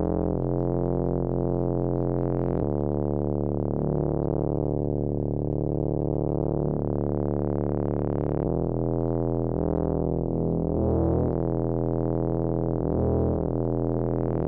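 Synthesizer background music of sustained keyboard chords, changing every few seconds, with no drums.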